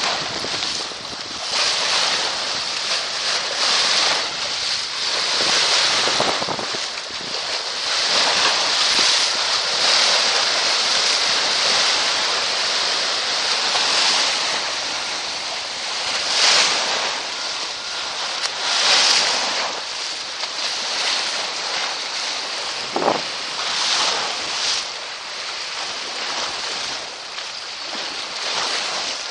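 Strong gusting wind buffeting the microphone, over choppy reservoir waves slapping and breaking against the bank. The noise swells and eases with the gusts, and one short whistle comes about three-quarters of the way through.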